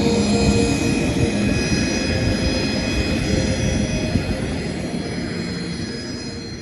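Steady mechanical rumble and hiss with several high whining tones held through it, slowly fading away.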